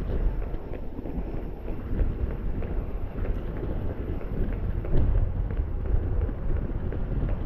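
Wind noise rumbling on the microphone of a camera carried by a rider on an electric unicycle, with a few faint ticks.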